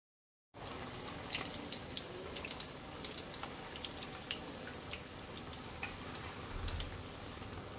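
Sooji malpua batter sizzling in hot oil in a pan: a steady crackle with many sharp pops, starting suddenly about half a second in.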